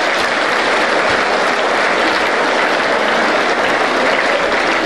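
A large audience of schoolboys applauding steadily at the end of a haka performance, a dense even clapping.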